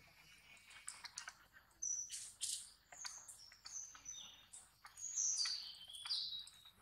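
Birds chirping: a series of short, high whistled calls, several falling in pitch, loudest about two seconds in and again around five to six seconds in.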